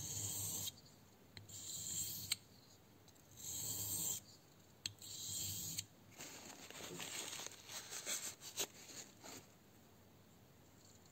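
Steel blade of a grafting knife being drawn across a wet whetstone: four slow, even sharpening strokes with a hissing scrape, then a run of shorter scrapes and clicks as the knife is handled, before it falls quiet.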